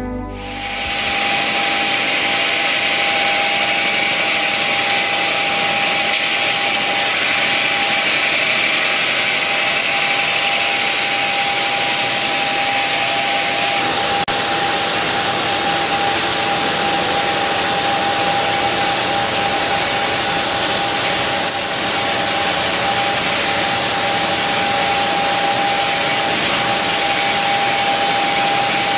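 Bridge-type granite edge cutting machine (SVM-1000) running: a steady whine over a dense hiss of cutting noise, the hiss changing in tone about halfway through.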